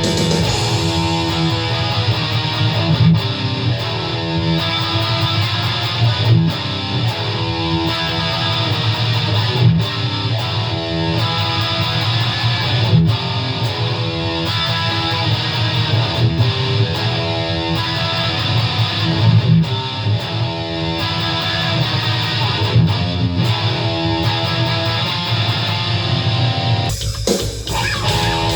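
Heavy distorted electric guitar (ESP LTD EC-10 through a Boss Metal Core ML-2 into a Line 6 Catalyst amp) playing a metal riff over a drum-machine metal beat. Near the end there is a brief break in the riff.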